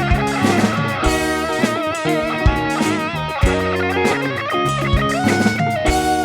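Instrumental rock jam: an electric guitar plays a lead line with bent, wavering notes over a bass line and a steady electronic drum-pad beat of about one hit a second, layered with a loop station.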